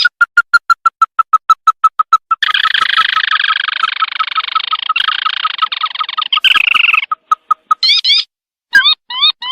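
Recorded lure call of the sintar mata merah (lantung) bird. A rapid run of short piping notes, about seven a second and slowly dropping in pitch, is joined about two and a half seconds in by a harsh rattling trill lasting some four and a half seconds. Near the end come a few quick rising chirps.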